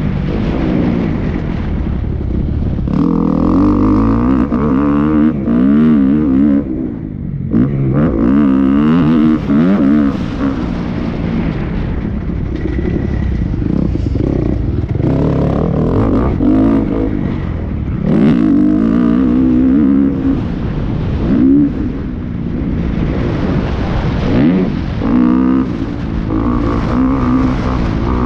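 Dirt bike engine ridden hard around a motocross track, revving up and down over and over as the throttle opens and closes and the gears change.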